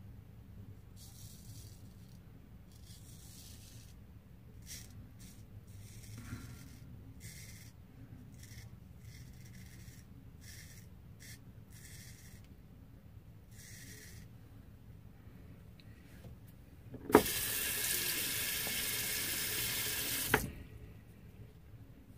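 Straight razor scraping through lathered stubble in a series of short, faint rasps. Near the end a water tap runs in a steady rush for about three seconds, starting and stopping with a click.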